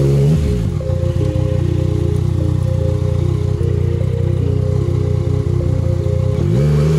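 Yamaha MT-09's inline three-cylinder engine running on a dirt trail: its revs fall away in the first half-second, it runs at low revs, and it blips up again near the end. Background music plays over it.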